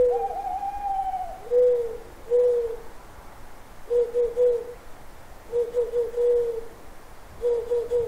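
Owl hooting: a series of low hoots, first single ones and then quick runs of two or three hoots, with a longer, higher call just after the start.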